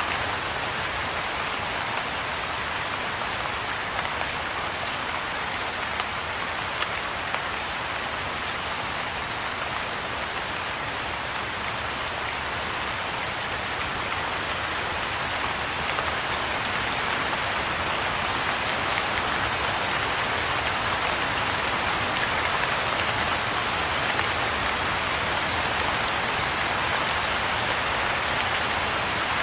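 Rain falling on a pond's water and the surrounding grass and shrubs: a steady, even sound of many drops, growing a little heavier from about halfway through.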